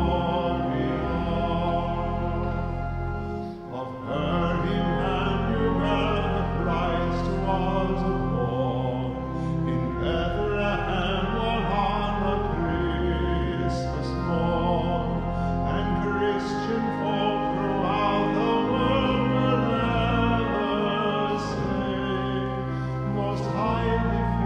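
Pipe organ accompanying a slow sung hymn, its low bass notes held and changing in steps beneath the voice. There is a brief break between phrases about three and a half seconds in.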